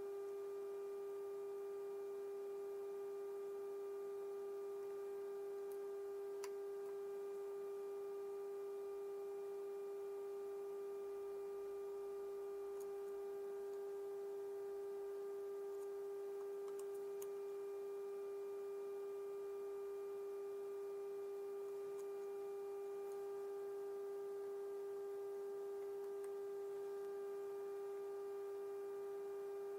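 Steady test tone with faint overtones from the GE 7-2877H radio's speaker as it receives a tone-modulated 455 kHz signal from a signal generator during AM IF alignment.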